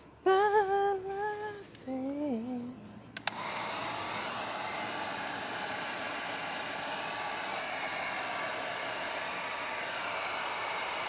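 A man hums a few wavering notes. About three seconds in, a click is followed by an electric heat gun running with a steady blowing hiss as it shrinks heat-shrink tubing onto a trailer tie-down hook.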